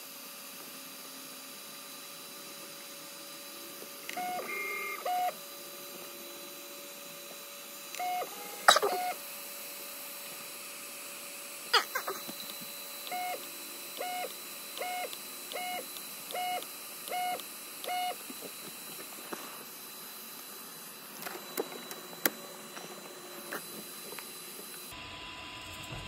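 Easythreed 3D printer beeping in short electronic tones as its buttons are pressed during bed leveling, with a run of about eight evenly spaced beeps midway. A sharp click about nine seconds in is the loudest sound, and another follows a few seconds later.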